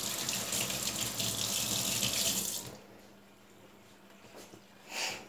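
Kitchen tap running water into the sink, shut off about two and a half seconds in.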